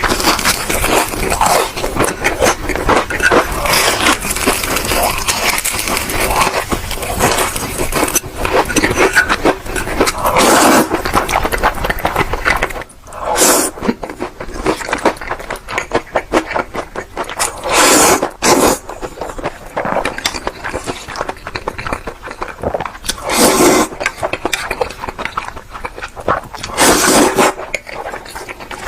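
A person eating Indomie instant noodles with chicken: dense wet chewing and mouth clicks for the first dozen seconds, then quieter chewing broken by about four separate louder bursts a few seconds apart.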